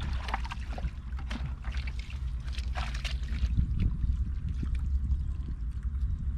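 Shallow water splashing and sloshing in irregular strokes, as of hands and legs working through the water of a flooded rice field, over a steady low rumble.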